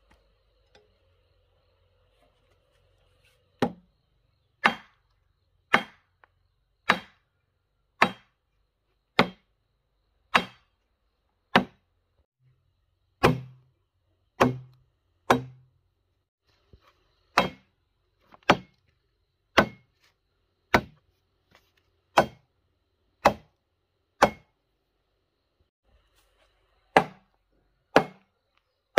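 Repeated single blows of a hand tool, about one a second, some twenty strikes in all, starting a few seconds in with a couple of short breaks between runs.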